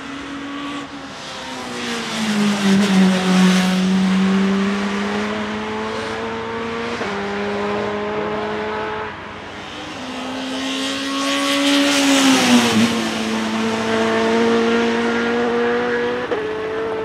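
Nissan Primera GT BTCC Super Touring car's naturally aspirated 2.0-litre SR20DE four-cylinder, running at high revs up the hill with its intake note to the fore. It grows loud twice as it passes, about 3 and 12 seconds in, and its pitch drops sharply just before 13 seconds, with sudden pitch steps from gear changes along the way.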